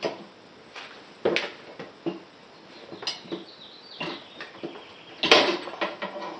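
Metal clanks and knocks from a manual tire changer and Mojolever mounting bar being handled and set against the motorcycle wheel and tire, about six in all, the loudest about five seconds in.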